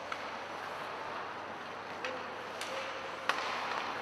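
Ice hockey rink sound during play: skate blades scraping across the ice under a steady hiss, with a few sharp clacks of sticks and puck, the loudest about three seconds in.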